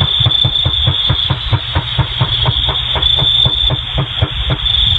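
Rapid gunfire picked up by a neighbouring home security camera's microphone: an unbroken run of shots, about four to five a second, over a steady high hiss.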